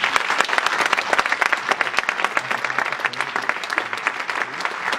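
Audience applauding: dense, steady clapping from many hands that fades out shortly after.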